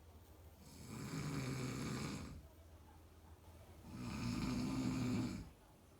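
A man snoring in his sleep: two long snores of about a second and a half each, the second starting about three seconds after the first.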